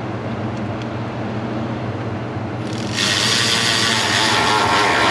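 A loud, even hiss from a shop tool starts about three seconds in and stops sharply about two seconds later, over a steady low hum.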